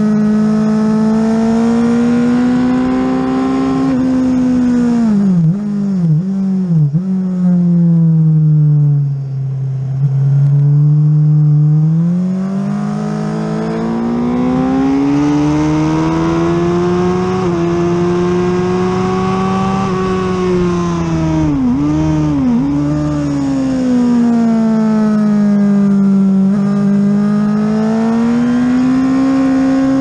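Sport motorcycle engine heard from onboard at racing speed, revs climbing as it accelerates and falling away into corners. Quick blips on the downshifts come about six seconds in and again about twenty-two seconds in.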